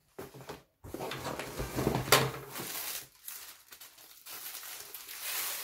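A fabric carrying bag being pulled out of a cardboard box and put down on a table: rustling and crinkling, with one sharp knock about two seconds in.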